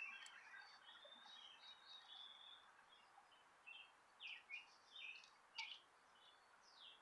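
Faint birds chirping: short, high, downward-slurred notes that come in a loose cluster from about four seconds in, over quiet outdoor background.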